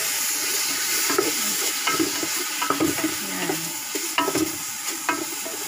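A wooden spoon scrapes around the inside of a large aluminium pot of simmering stew in repeated strokes, roughly one a second, over a steady hiss.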